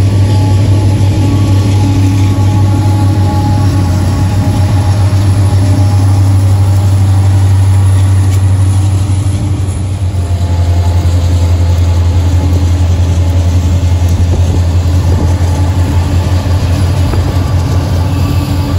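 CSX freight train passing close by: the steady deep drone of its diesel locomotives runs with the rolling noise of freight cars on the rails.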